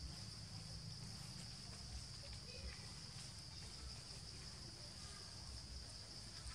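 Insects droning in a steady high-pitched chorus, with a low uneven rumble underneath.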